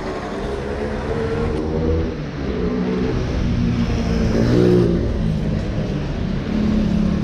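Motor vehicle engine running close by, its pitch shifting up and down, loudest a little past the middle, over general street noise.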